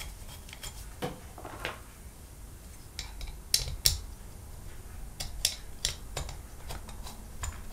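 Small steel screws clinking and clicking as they are set one by one into the top cover of a Weber 26 IMB carburettor and lightly started in their holes; an irregular scatter of light metallic clicks.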